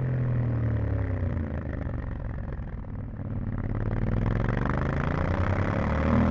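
Yamaha Ténéré 700's 689 cc parallel-twin engine on stock exhaust, its revs falling off on a closed throttle, then climbing again from about three seconds in as it accelerates.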